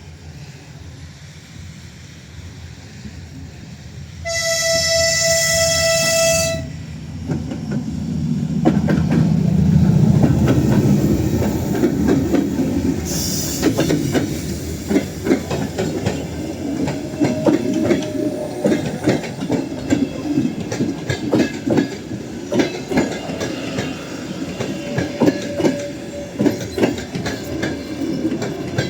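TE33A diesel-electric locomotive sounding one steady horn blast for about two seconds, then its diesel engine running loud as it passes close by. After that come the passenger cars' wheels clacking over the rail joints.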